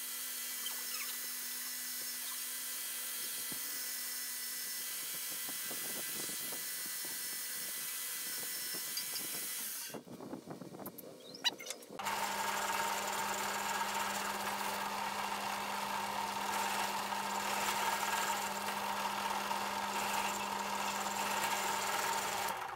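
Electric belt grinder motor running steadily for about ten seconds. After a short quieter break, a drill press runs steadily while drilling holes in wooden knife-handle scales.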